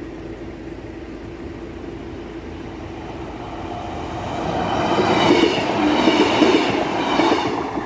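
Two coupled Class 185 diesel multiple units approaching and running over a level crossing. The train noise builds from about four seconds in and is loudest near the end, with a high whine over the rumble.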